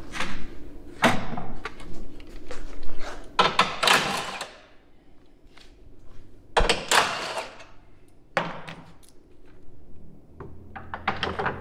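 Knocks and clattering bangs, about six in all and spaced irregularly, as a plastic radiator core support is handled and pushed into place against a car's front frame rails.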